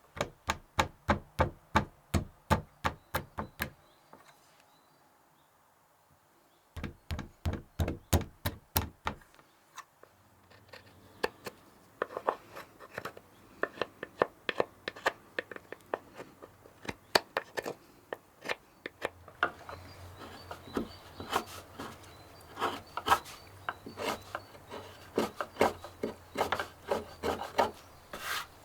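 Reconstructed Viking-age hand tools working wood: quick, regular strokes at about three a second in two short runs, then a longer stretch of irregular scraping and tapping strokes.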